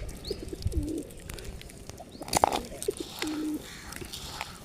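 Pigeons cooing in low repeated phrases while they feed, with a few short high chirps from smaller birds. A single sudden sharp noise stands out about halfway through.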